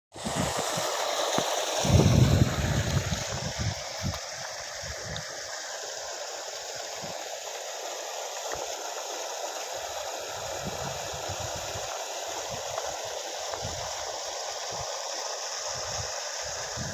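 Steady hiss of water spraying from perforated rain-pipe hoses onto chilli seedling beds. Wind buffets the microphone now and then, hardest about two seconds in.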